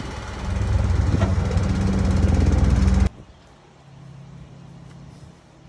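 A motor vehicle's engine running with a loud, steady low rumble that grows louder about half a second in and cuts off abruptly about three seconds in, leaving a faint low hum.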